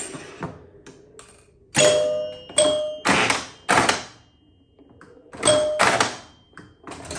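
1976 Bally Flip Flop electromechanical pinball machine in play: a string of sharp solenoid thunks and clicks from flippers, bumpers and score reels, with scoring chimes ringing out three times as the score goes up.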